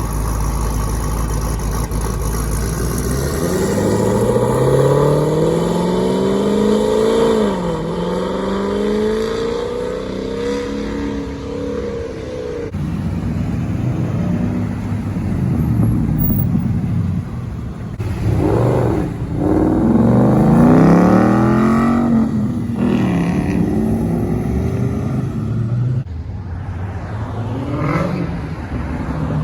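V8 muscle car engines accelerating hard, one after another, each pitch climbing under full throttle and dropping briefly at gear changes before rising again.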